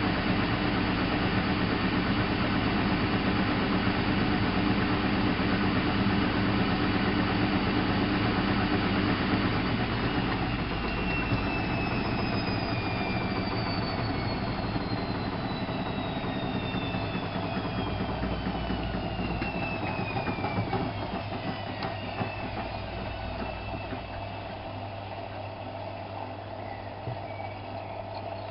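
Alaska WA8200 E washing machine winding down from a spin: a steady low hum stops about ten seconds in, then a whine falls slowly in pitch and the sound fades as the drum coasts down.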